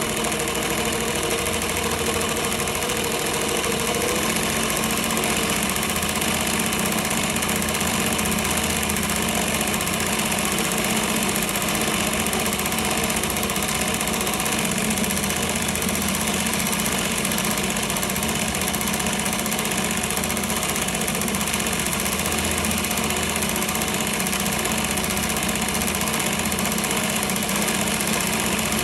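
Vintage Singer 47w70 darning machine running steadily, its needle stitching rows of darning thread back and forth over a hole in denim.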